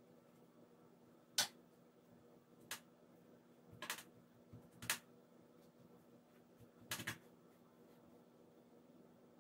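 Watercolour brush knocking and dabbing against a metal paint box and the paper: about five short, irregular clicks over a faint steady hum.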